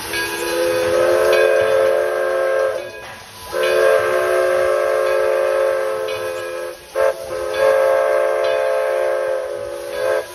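Steam locomotive whistle, on Edison No.1, a 4-4-0, sounding four blasts, long, long, short, long: the standard signal for approaching a grade crossing. A steady steam hiss runs under it.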